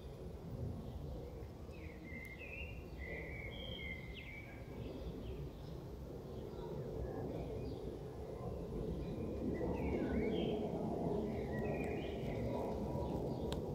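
A songbird singing short chirping phrases in the background, in two spells a few seconds apart, over a steady low outdoor noise.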